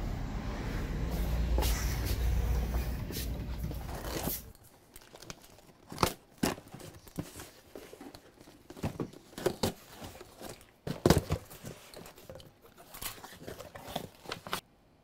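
A low vehicle rumble through an open doorway for the first four seconds or so. Then, after a cut, a cardboard shipping box is torn open and handled: packing tape ripping and cardboard flaps crackling in short, sharp, irregular noises.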